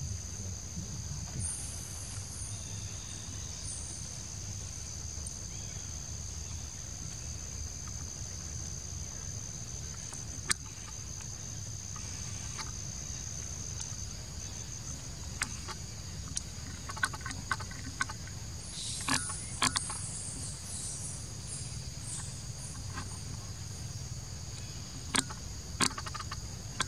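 A steady high-pitched insect chorus, two unbroken shrill tones, over a low rumble. Scattered short clicks and rustles come mostly in the second half.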